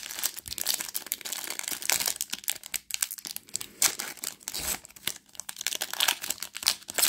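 Foil Pokémon trading-card booster pack wrapper being torn open and crinkled by hand: a dense, irregular run of sharp crackles and rips.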